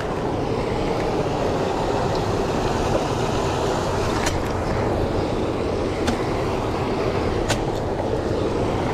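Steady rushing of river water flowing over rocks, with a few faint clicks near the middle and end.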